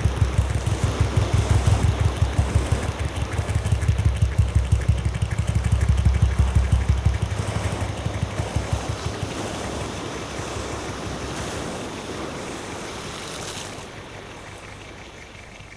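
An engine chugging with a steady, rapid low pulse under a broad hiss, fading gradually away over the second half.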